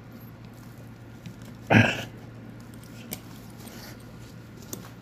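A horse close to the microphone, chewing faintly, with one short loud snort about two seconds in.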